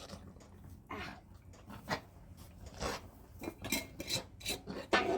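A series of irregular clattering knocks and clanks of hard objects, about eight in all, the loudest near the end.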